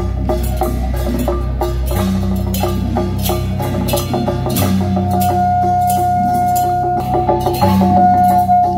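Traditional Taiwanese beiguan ensemble music: fast percussion with wood-block clicks under steady low tones, and one long held note from about halfway in.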